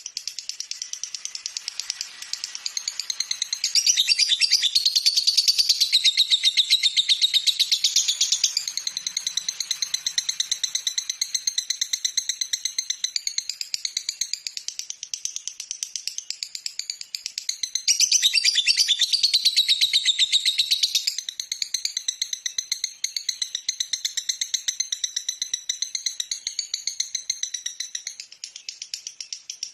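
Lovebird chattering in a long, unbroken run of rapid high chirps. It grows louder for a few seconds about four seconds in, and again about eighteen seconds in.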